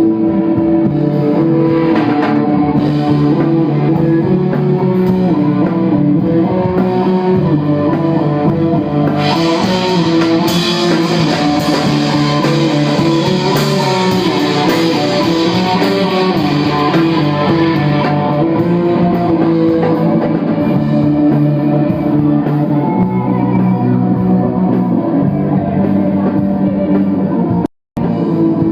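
Rock band playing live in an instrumental passage: electric guitars ringing out shifting chords over bass and drum kit. The sound grows brighter and busier from about a third of the way in until past the middle. It cuts out for an instant near the end.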